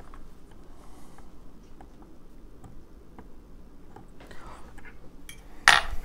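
Small scattered metallic ticks from a dimple pick and tension wrench working the pins of a Mul-T-Lock padlock cylinder, with one much louder sharp metal clink near the end.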